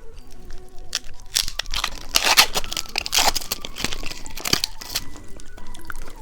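Candy packaging being torn open and crinkled by hand, in a run of irregular crackling bursts.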